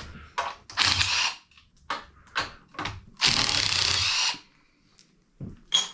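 A power tool running out the oil pan bolts on an engine short block, in short runs: one of about half a second, then a longer one of about a second a little past halfway, with small clicks and clinks of bolts and tool in between.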